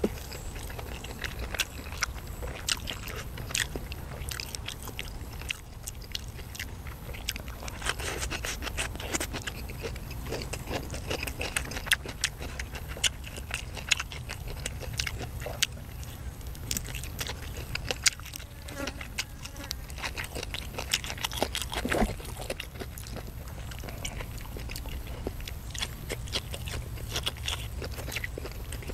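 Close-miked chewing and lip-smacking while eating grilled chicken, with many short wet clicks and smacks, over a steady low hum.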